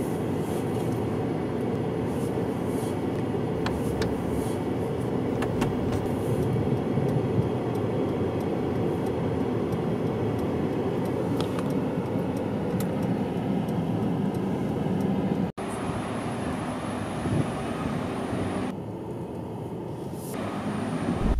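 Steady low rumble of a Mercedes-Benz E-Class creeping slowly under its automatic Parking Pilot, heard from inside the cabin. The sound cuts out for an instant about three-quarters of the way through.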